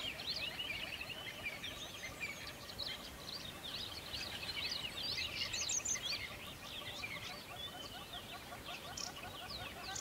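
A flock of small birds chirping and chattering together: many short overlapping calls in a dense, continuous chorus.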